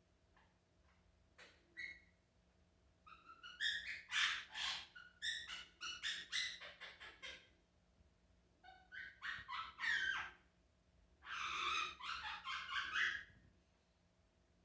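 Quaker parrot (monk parakeet) calling: a few short calls, then three bouts of rapid chattering calls with brief pauses between them.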